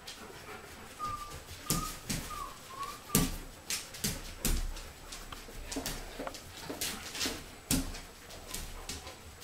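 Alaskan Malamute puppies giving a few short, high squeaks in the first three seconds, among many sharp clicks and knocks from the dogs' claws and paws on a tiled floor.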